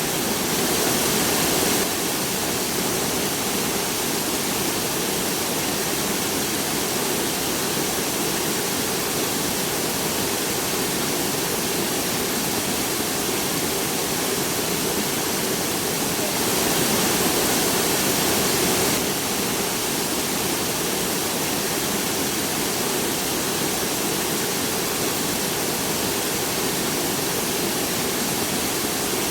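Steady rain falling, an even hiss that swells slightly near the start and again for a couple of seconds just past the middle.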